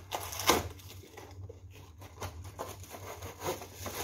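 Packaging rustling and crinkling while the ring light's stand is unpacked by hand, with irregular handling knocks; the loudest rustle comes about half a second in.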